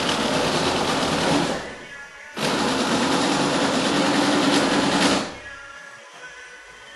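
A small electric motor whirring steadily, cutting off about one and a half seconds in, starting again abruptly under a second later, and stopping a little after five seconds in.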